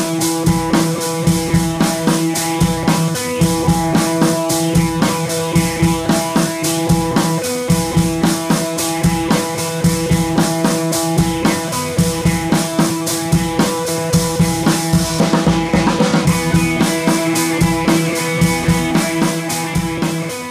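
Intro music with a steady drum-kit beat over held synth-like notes.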